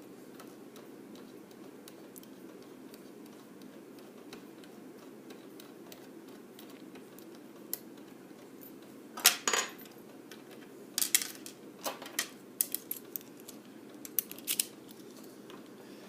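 Small metal lock parts being handled while a pin-tumbler lock is taken apart: after a steady low hum, sharp clicks and clinks start about eight seconds in, the loudest near nine seconds, and carry on in a scatter until shortly before the end.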